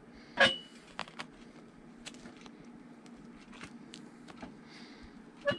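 Hand-stitching a leather boot welt: small clicks and ticks of an awl working through the leather and thread being handled, with a sharper click about half a second in and another near the end, over a faint steady hum.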